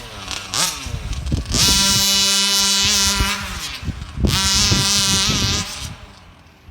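Rovan gas RC car's small two-stroke engine revving. A few quick rising blips come first, then it is held at high revs for about two seconds, twice. The revs drop away near the end.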